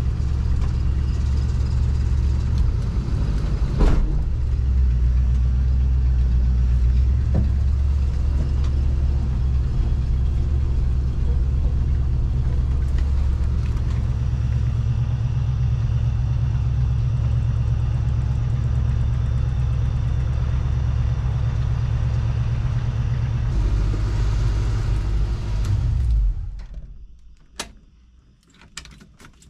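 The AMC 360 V8 of a 1986 Jeep Grand Wagoneer runs with a steady low rumble, with a single knock about four seconds in. Near the end the engine is shut off and dies away, followed by a few light clicks and rattles.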